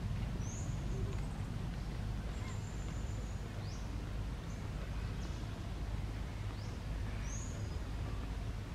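Outdoor forest ambience: a steady low rumble with about eight short, high chirps from birds scattered through it.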